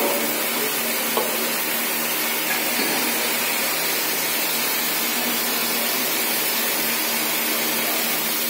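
Steady hiss and hum of a motor-driven machine running without a break, with a faint tap about a second in.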